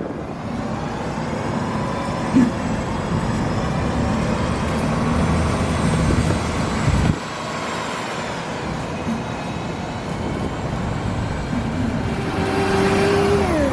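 Steady city street traffic noise. Near the end a passing vehicle's whine drops in pitch as it goes by.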